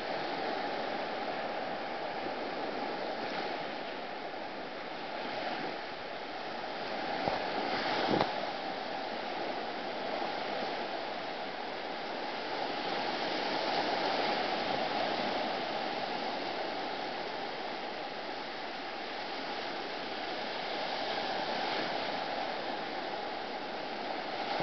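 Surf washing onto a sandy beach: a steady hiss that swells and eases as the waves break and run up the shore, with one brief knock about eight seconds in.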